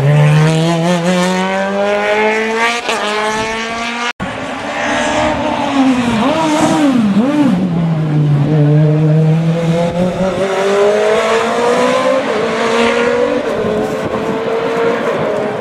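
Group CN sports-prototype race car engine revving hard as it accelerates uphill, its note climbing through each gear and dropping back at the upshifts. There is a sudden break about four seconds in; after it the note dips and wavers, then climbs through the gears again.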